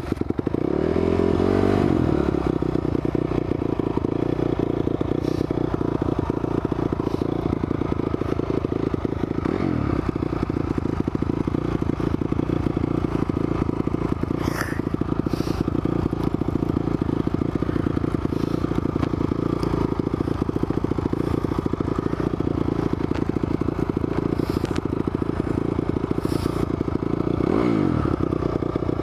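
Honda CRF250R dirt bike's single-cylinder four-stroke engine running, its pitch rising and falling with the throttle about a second in, near ten seconds and again near the end.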